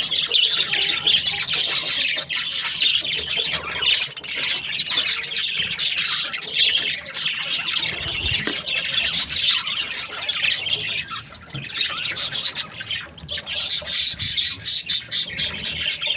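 Several budgerigars chirping and squawking in a continuous busy chatter, easing briefly about two thirds of the way through.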